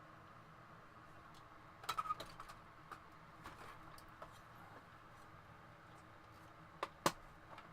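Scattered light clicks and taps from handling the DVD player's circuit board and parts on a workbench, over a faint steady room hum: a short cluster about two seconds in and two sharper clicks near the end.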